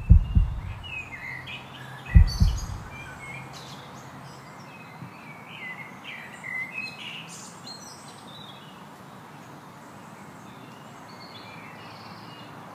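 Birds chirping over a steady outdoor hiss, with two deep low thumps, one at the very start and one about two seconds in.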